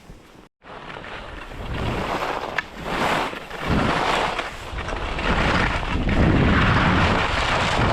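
Skis sliding and hissing through powder snow with wind rushing over the action camera's microphone, building up and staying loud through the second half; a brief cut to silence about half a second in.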